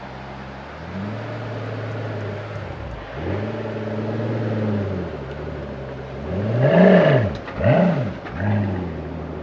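Pagani Huayra's twin-turbo 6.0-litre Mercedes-AMG M158 V12 idling and being revved: the engine speed is raised and held twice, then three quick revs rise and fall, the first the loudest.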